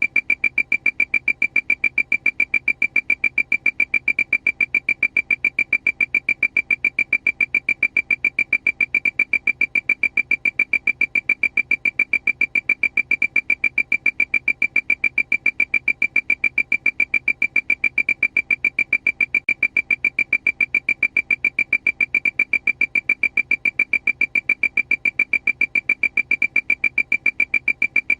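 Aircraft alarm: a high, piercing beep repeating rapidly and evenly, about three or four times a second, without change.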